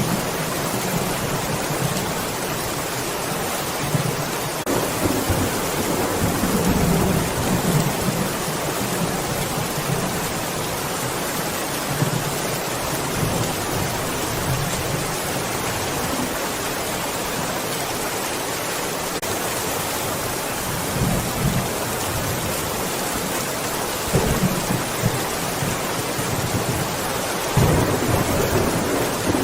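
Steady rain falling, with rolls of thunder rumbling low several times, the longest near the end.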